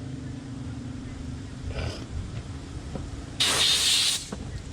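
A short blast of pressurised gas hissing, under a second long, about three and a half seconds in, with a few light clicks before it over a steady low hum.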